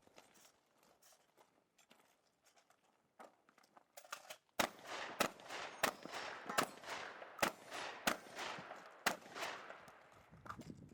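Benelli Supernova pump-action shotgun fired seven times in quick succession, a shot roughly every two-thirds of a second to a second, each with a short echo. Faint clicks and steps come before the first shot.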